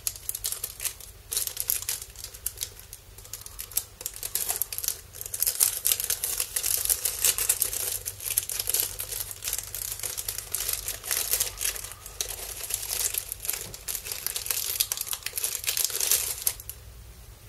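A clear cellophane packet crinkling and crackling as hands handle it and work it open to slide out a card of paper clips. The crinkling is heaviest in the middle and dies away shortly before the end.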